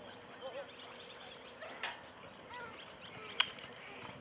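Polo mallet striking the ball: a sharp crack about two seconds in and a louder one near three and a half seconds, over faint distant voices.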